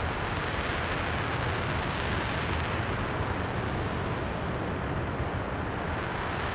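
RS-25 liquid-hydrogen/liquid-oxygen rocket engine firing on a test stand: a steady, unbroken rushing noise, heaviest in the low end.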